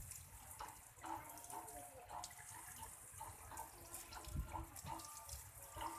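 Faint water splashing and dripping as a caged black-naped oriole is given a bath, with many small, separate drips and patters.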